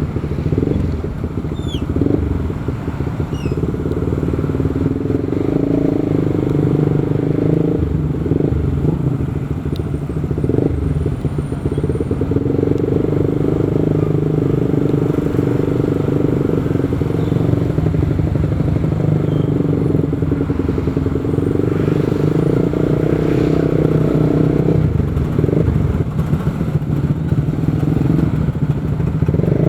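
Motorcycle engine running while riding, heard from on the bike, with road noise underneath. The engine note grows louder and eases off several times.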